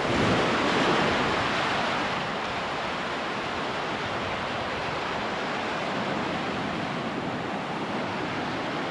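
Caribbean surf on a sandy beach: a wave washes up, swelling to its loudest about a second in, then the steady hiss of the surf.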